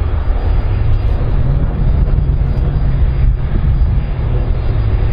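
Airbus A310-304 airliner's twin General Electric CF6 turbofan engines running loud with a deep, steady rumble as the aircraft rolls along the runway.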